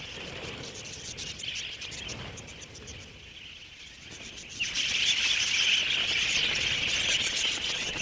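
A large flock of budgerigars chirping and chattering, a continuous high twittering that becomes much louder about halfway through.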